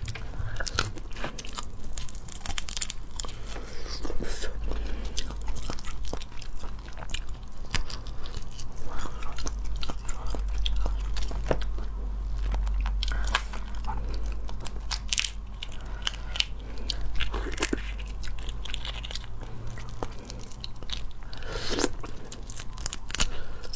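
Close-up eating sounds of whole cooked crayfish being pulled apart and eaten: shells cracking and crunching, with chewing and mouth noises, as many short sharp clicks and crackles.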